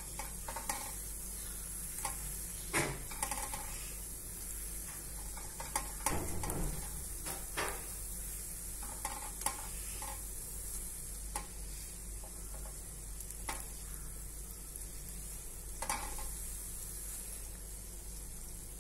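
Shankarpali pieces deep-frying in hot oil with a steady sizzle. A wire-mesh skimmer stirs them in the pan, making occasional brief clinks.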